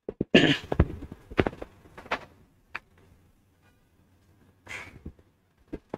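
A string of knocks and thuds, with two short rustling swishes, one about half a second in and one near five seconds, as a person moves about and handles things at a whiteboard.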